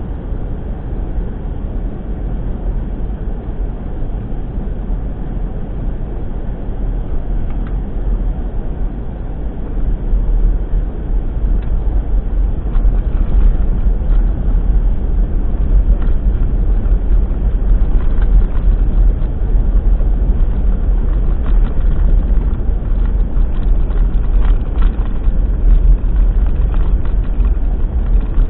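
Vehicle driving on a gravel road, heard from inside the cab: a steady low rumble of engine and tyres with scattered light ticks from the gravel, getting louder about ten seconds in.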